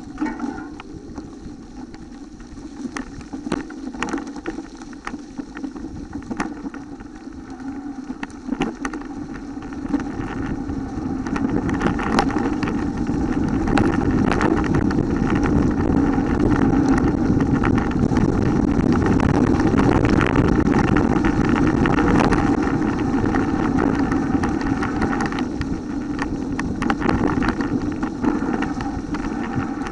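Mountain bike riding noise from an on-board camera: wind on the microphone and tyres rolling over dry leaf litter, with short clicks and rattles from the bike over bumps. It grows louder about ten seconds in and stays loud through the middle.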